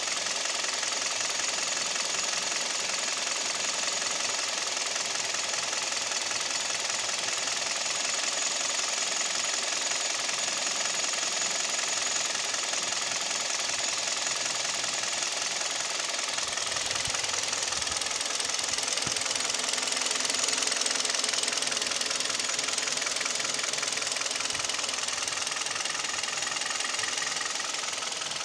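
Hyundai/Kia G4KD 2.0-litre Theta II inline-four engine running steadily with a persistent knock, which the owner takes for piston knock. It gets slightly louder about two-thirds of the way through.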